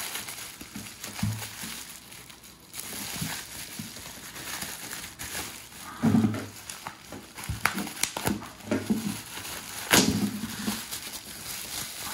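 Plastic bubble wrap crinkling and rustling as it is pulled off a small electronic controller. A few sharper cracks stand out, the loudest about ten seconds in.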